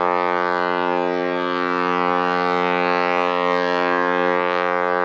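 Ship's horn sounding one steady, unbroken blast in greeting during the harbour parade.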